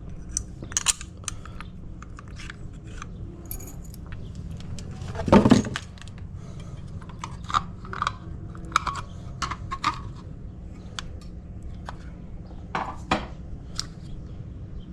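Small metal lock parts and tools clicking and clinking as a deadbolt is worked on, with a louder clunk about five seconds in.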